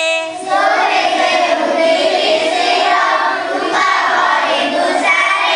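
A class of schoolchildren singing an Odia song together, many voices in unison, blurred into one sound.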